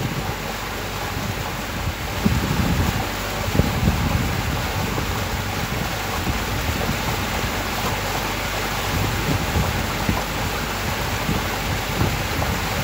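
Steady noise of a boat under way on open water, with wind buffeting the microphone in uneven low rumbles.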